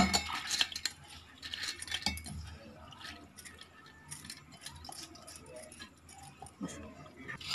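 A steel plate clinking and scraping against the rim of a steel bowl as soaked moong dal is pushed off it by hand, with a sharp clink at the start and soft scrapes and light clicks after.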